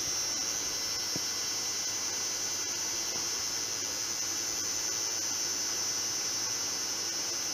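Zanussi ZWF 1432 washing machine spinning its drum, a steady motor hum and high whine at an even level. The tester judges that it sounds alright on the spin, with no bad bearings.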